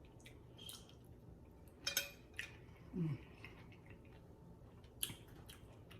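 Quiet eating sounds: a few light clicks and clinks of utensils against a plate, about two seconds in and again near five seconds, with a brief falling hum near the middle.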